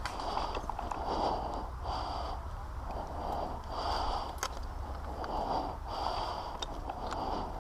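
A person's heavy, rhythmic breathing close to the microphone, about one breath a second, with a few faint clicks in between.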